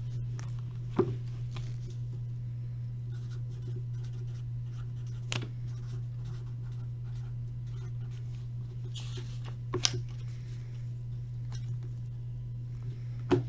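Trading cards and card holders being handled, with scattered light clicks and taps and a short rustle about nine seconds in, over a steady low hum.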